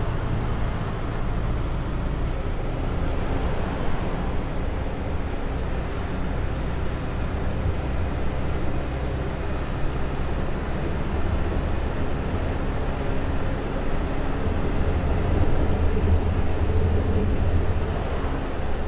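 Eicher-chassis sleeper coach cruising on the highway, heard from inside the cabin: a steady low rumble of engine and tyre noise. It swells a little louder about three-quarters of the way through.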